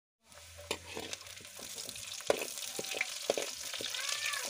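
Sliced onions sizzling in hot oil in a black wok, stirred with a steel ladle that clicks and scrapes against the pan now and then.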